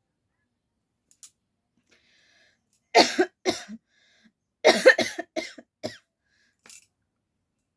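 A woman coughing: near quiet at first, then two or three coughs about three seconds in, a longer fit of several coughs a second or so later, and one weak cough near the end. By her own account it is a real cough, brought on by fake coughing over and over.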